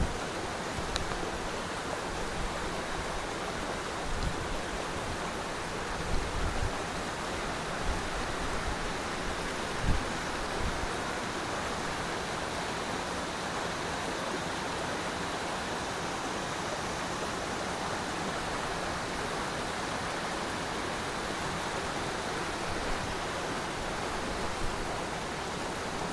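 Waterfall: a steady rush of falling water, with a few brief low thumps about six and ten seconds in.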